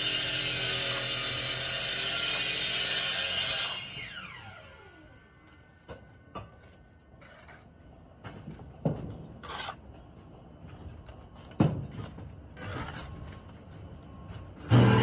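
Power cutting tool running at full speed, switched off about four seconds in and winding down with a falling whine. Then scattered knocks and taps, and the tool starts up again with a rising whine at the very end.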